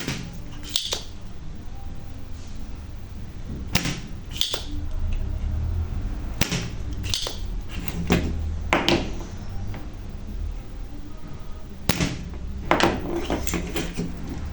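Scattered sharp clicks and scrapes of hand tools and parts being handled at a workbench, over a steady low hum, while relays are being changed on a microwave oven's control board.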